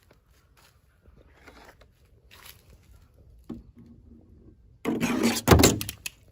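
Hands handling toy packaging: light rubbing and scraping, then a loud rustle of about a second, starting near five seconds in and ending in a few quick clicks.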